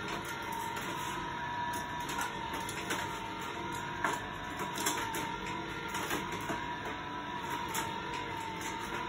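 Motorized spiral car elevator of a Hot Wheels Super Ultimate Garage playset running with a steady whirring whine, with a few clicks of toy cars on plastic, the sharpest about four seconds in.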